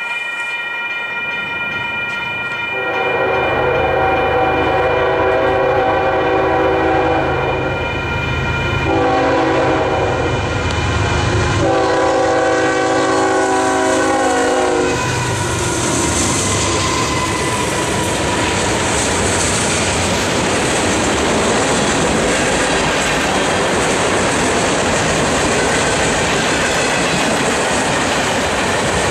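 Freight train locomotive horn sounding three blasts, the first the longest, followed by the train rolling past with steady wheel-on-rail noise and clickety-clack.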